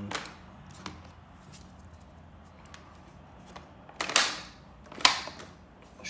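Plastic clicks and snaps of the brushroll cover on a Shark NV601UK31 vacuum's floor head being pushed shut and latched: a couple of light clicks, then two loud snaps about a second apart near the end.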